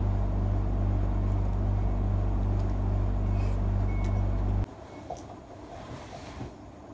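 Steady low hum, like a motor running, that stops abruptly about four and a half seconds in. After it comes quieter room sound with a few faint knocks.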